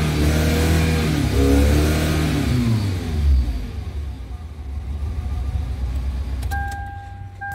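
Toyota Land Cruiser Prado engine running at high revs just after starting, the revs falling away about three seconds in as it settles to idle: the car now starts with the immobilizer reprogrammed and the security light off. A few clicks and a steady electronic beep come in near the end.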